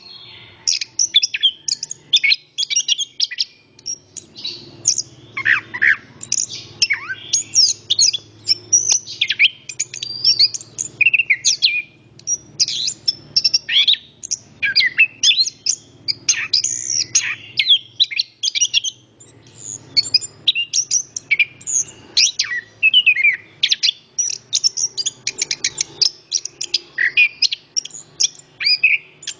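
Orange-headed thrush singing continuously: rapid, varied runs of chirps, whistles and slurred notes in quick succession, broken by brief pauses.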